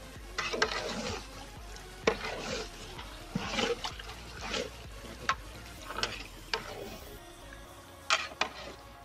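Long metal ladle scraping and knocking against a large aluminium cooking pot as a thick chicken korma is stirred, in irregular scrapes and clacks about once a second.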